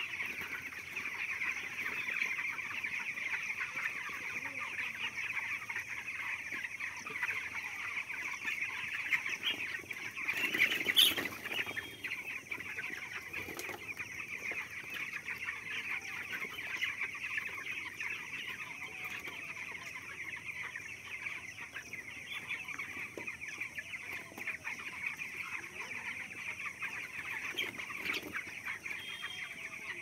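Dense, steady chorus of peeping from a large flock of 16-day-old broiler chicks. A louder knock with a rustle about eleven seconds in.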